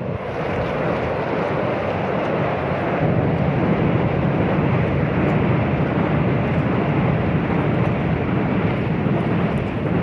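Fishing boat underway: a steady rush of motor, water and wind noise on the microphone that grows louder about three seconds in.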